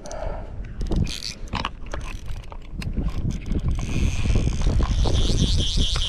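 Wind buffeting the microphone. From about four seconds in, a fishing reel gives a fast pulsing buzz as a hooked redfish is played.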